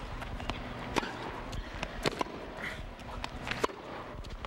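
Tennis ball struck back and forth by racquets in a rally: several sharp hits and bounces roughly a second apart, over the low steady murmur of an arena crowd.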